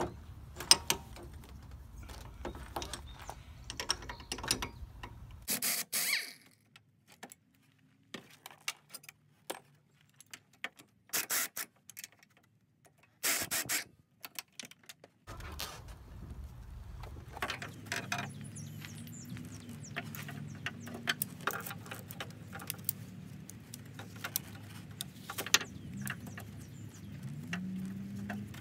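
Pneumatic air ratchet run in three short bursts while loosening engine mount bolts, among light metallic clicks and rattles from the tools and bolts being handled.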